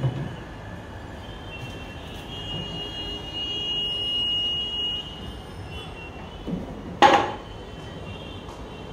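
A wooden kitchen cabinet door knocking shut once about seven seconds in, with a lighter knock just before it. Earlier, a steady high whine runs for a couple of seconds.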